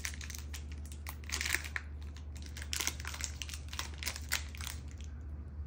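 A Kind nut bar's plastic wrapper being torn open and crinkled by hand: irregular crackling, busiest in the middle and stopping near the end.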